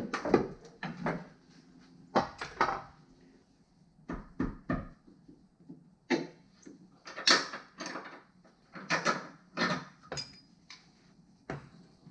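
Irregular clanks and knocks of hand tools against metal suspension parts, some ringing briefly, as bolts are worked loose and parts are pulled apart.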